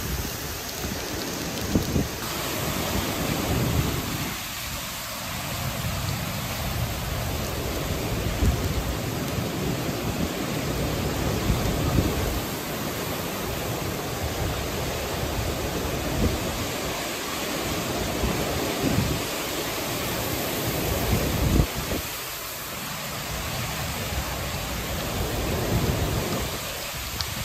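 Hurricane wind and torrential rain: a steady hiss of heavy rain, with uneven gusts rumbling and thumping on the microphone.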